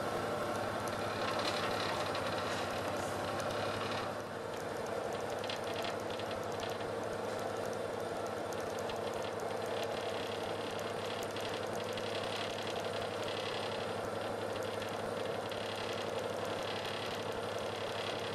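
A boat engine running steadily, heard from on board the moving boat.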